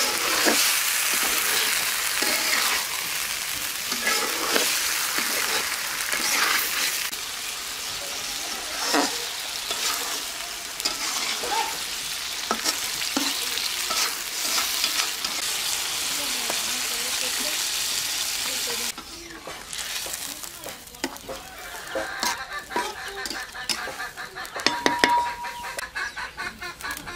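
Small mola fish sizzling as they fry in spiced oil in a black pot, with a spatula scraping the pot as it stirs. About 19 s in the sizzling cuts off, and chickens cluck over small clicks and rustles.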